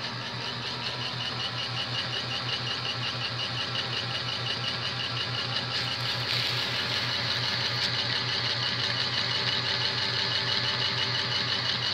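Small electric motor and gearing of a Life-Like HO-scale 0-4-0 saddle-tank steam switcher running steadily while hauling a heavy twelve-car train of about 861 grams, with a fast, even ticking over the whir. It grows slightly louder as the locomotive comes closer.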